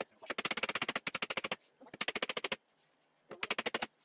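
Ratcheting screwdriver clicking in three quick bursts of about a dozen clicks a second, the ratchet running as screws are driven into the bookcase panels.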